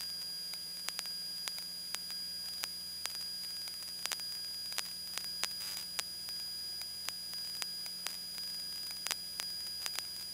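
Steady hiss of a light aircraft's intercom and radio audio feed between transmissions, with a faint high steady whine, a low hum and irregular sharp clicks.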